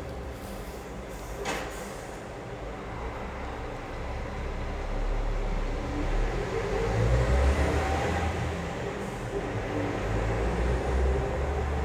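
Low engine rumble of a road vehicle that swells in the second half. There is one sharp click about a second and a half in.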